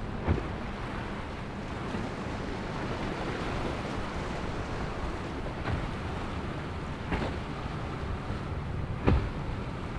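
Steady surf and wind noise at a rough inlet, with a few dull thuds as a small outboard center-console boat's hull slams down onto the waves: one just after the start, another about seven seconds in, and the loudest about nine seconds in.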